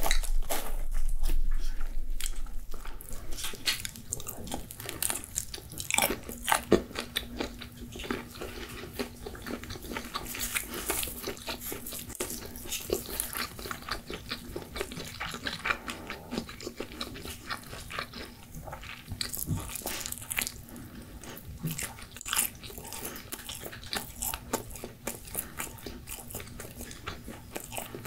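Pizza being bitten and chewed close to the microphone, with the crust crunching in many short crackly bites. It is louder in the first few seconds.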